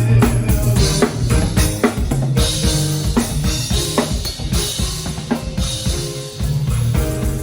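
Drum kit playing a beat over low held bass notes, as in a band playing live.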